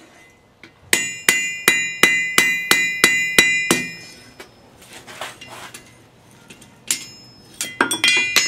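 Blacksmith's hand hammer striking a steel bar held in tongs on the anvil while forging a hot punch, each blow ringing. About a second in comes a quick run of about nine blows, roughly three a second. Softer, duller knocks follow, then another run of ringing blows near the end.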